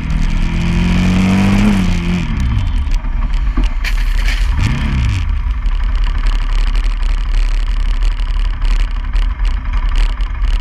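Motorcycle engine heard from on board, pulling up through the revs for about two seconds and then easing off. After that come mostly wind and road noise over a low engine hum, with one brief rise and fall in engine pitch about five seconds in.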